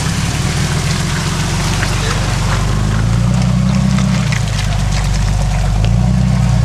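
Jeep Wrangler engine working at low speed in four-wheel drive, revving up twice, a little after a third of the way in and again near the end, with scattered clicks and crunches from the tyres on rocks and dry leaves.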